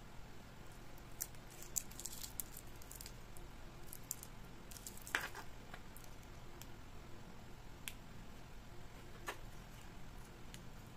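Faint clicks and rustles of fingers handling small plastic wireless clip-on microphones and their foam windscreens, with a sharper click about five seconds in and another a little after nine seconds.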